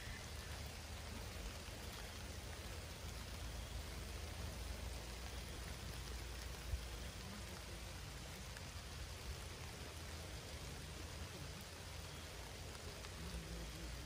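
Steady rain falling, under a low, gusty rumble of strong wind. One brief thump about seven seconds in.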